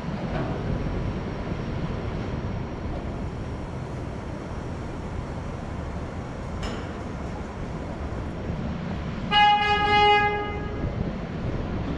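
A horn sounds once near the end, a single steady-pitched blast of about a second and a half, over a steady low rumble.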